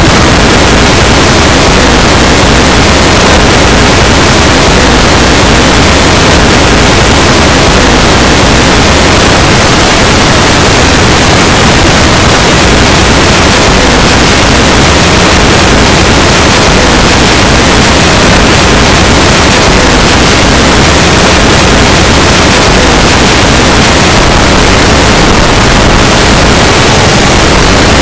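Heavily layered and distorted copies of an emergency alert alarm, merged into a steady, clipped wall of harsh noise with no distinct tones.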